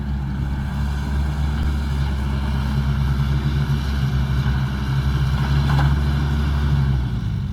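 Heavy diesel engine of earthmoving machinery running steadily, its low note shifting slightly near the end.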